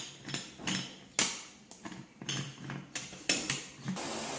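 Stainless-steel pressure cooker lid knocking and clinking against the pot as it is handled and closed: about a dozen sharp metallic knocks, irregularly spaced. Near the end a steady hiss sets in from a lit gas burner.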